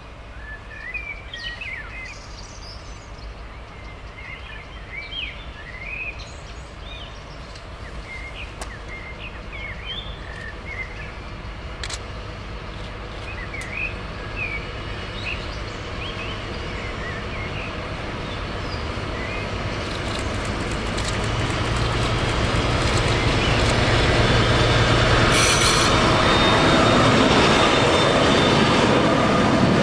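DR class 118 twin-engine diesel-hydraulic locomotive approaching under power with a freight train of hopper wagons. Its engines grow steadily louder until it passes close by in the last few seconds, followed by the rumble of the wagons. Birds chirp through the first half.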